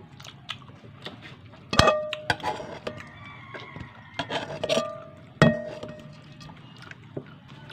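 A metal utensil clinking against dishes: a handful of sharp, ringing clinks, the loudest about two seconds in and again about five and a half seconds in.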